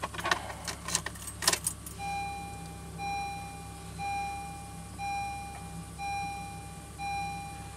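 A few sharp clicks and rattles, then a Honda Civic's dashboard warning chime: a clear tone that repeats about once a second, six times, as the ignition is switched on before a cold start.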